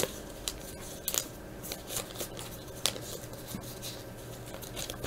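Trading-card pack and cards being handled: scattered soft crinkles and snaps of the foil wrapper and card stock, a dozen or so short ones.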